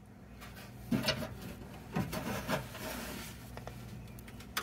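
Scuffing and rubbing as a hand grips and turns a spin-on oil filter, which is loose enough to come off by hand. There are a few soft knocks, a sharp click near the end, and a faint steady hum underneath.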